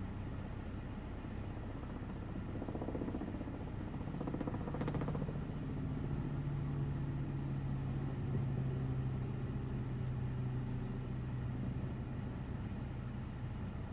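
Wind rumbling on the microphone. About four seconds in, a vehicle engine's steady hum rises, then eases near the end.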